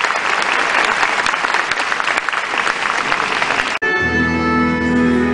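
Arena crowd applauding skaters at the end of a program. About four seconds in the applause cuts off abruptly and figure-skating program music with held notes begins, heard through the arena's sound system.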